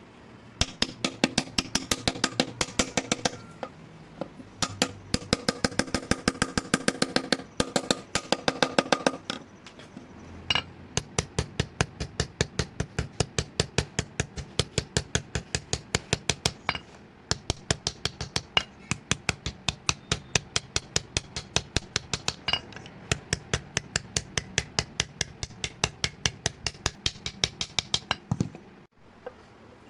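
Hand hammer striking metal on an anvil in fast, even runs of about four to five blows a second, with short pauses between runs. The early blows leave a ringing tone.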